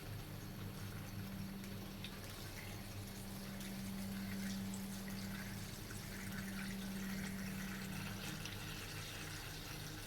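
Engine coolant pouring steadily from a gallon jug into a funnel in the car's cooling system filler, a liquid splashing and gurgling that grows a little stronger in the second half. A steady low hum runs underneath.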